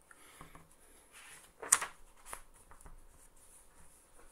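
Pages of a hardcover picture book being handled and turned: soft paper rustling with one sharp papery snap a little under two seconds in.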